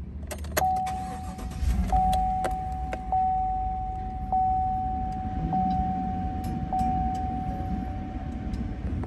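GMC Sierra 1500 pickup engine starting and flaring up before settling toward idle. A warning chime dings over it about once every 1.2 seconds.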